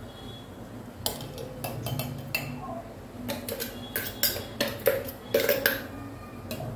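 A spoon clinking and knocking against a blender jar as thick date-and-almond milkshake is scraped out of it. There are a dozen or more irregular sharp clinks, some ringing briefly.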